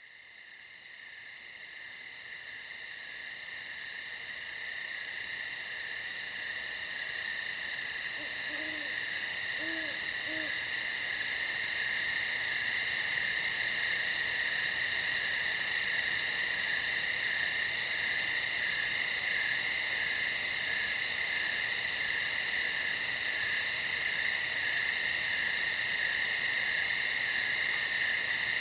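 A night chorus of crickets or katydids: a dense, steady, high-pitched pulsing trill that fades in over the first several seconds. About nine seconds in, an owl hoots faintly three times, low beneath the insects.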